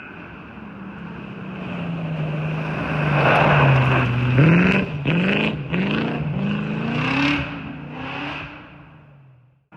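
Rally car engine passing: it grows louder and its pitch drops, then it accelerates away through the gears with about five quick rising revs, fading into the distance.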